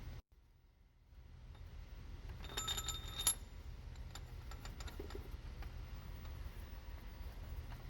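A quick run of light metallic clinks with a brief ringing tone, a few seconds in, followed by scattered softer ticks, over a low steady hum.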